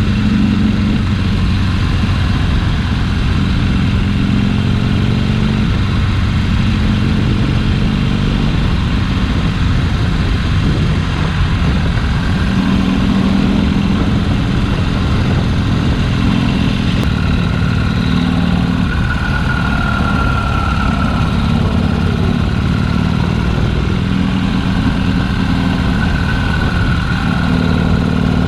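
Harley-Davidson Sportster's V-twin engine running on the move, its note stepping up and down with the throttle, over steady wind rush.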